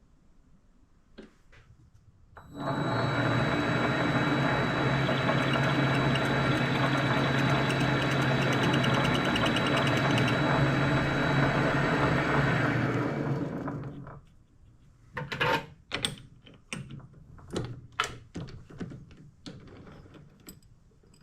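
An electric shop machine motor starts about two and a half seconds in, runs steadily with a low hum and a high whine for about eleven seconds, then winds down. Scattered light clicks and knocks of metal parts being handled follow.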